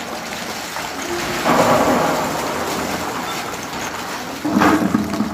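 A shower of small hollow plastic balls pouring down and clattering onto the floor, bowls and people, a dense rain-like patter that grows heavier about a second and a half in. A short voice cries out near the end.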